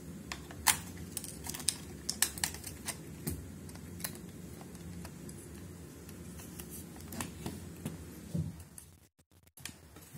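Canon T90 film SLR being worked by hand: a string of sharp, irregularly spaced clicks from its shutter and controls. The film does not advance with each shot, a fault that appeared after a drop and that the owner suspects is the winder motor.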